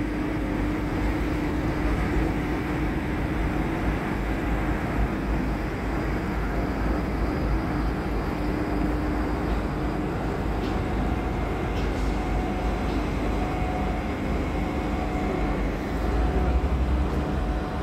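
Marine diesel engines running steadily: a low rumble with a held hum, under harbour tugboats pushing a container ship to its berth. It swells a little louder near the end.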